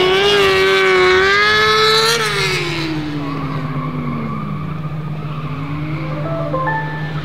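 Ford SuperVan 4's electric motors whining under power, with tyre squeal as the van slides on the tarmac. The whine wavers for the first two seconds, then falls in pitch as the tyre noise dies away, and rises again near the end.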